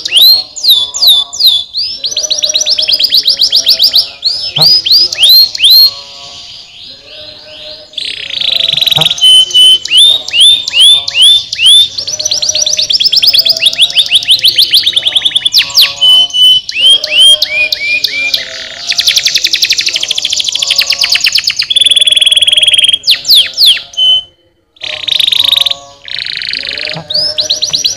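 Domestic canary singing a long, loud song of fast trills and rapidly repeated downward-sweeping notes, changing from one tour to the next, with a brief break near the end.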